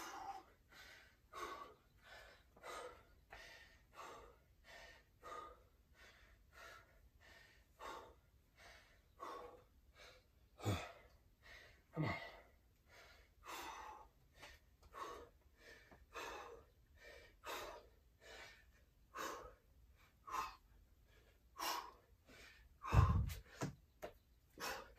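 A man panting hard, out of breath from the workout, with rapid breaths at about one and a half a second. Near the end there is a dull thump as he drops down onto the dumbbells on the floor.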